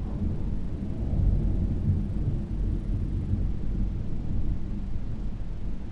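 Distant thunder rolling: a deep, uneven rumble that swells about a second in.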